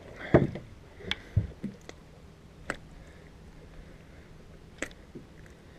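A few scattered clicks and light knocks from handling a just-landed bass aboard a fishing boat, over a faint low hum.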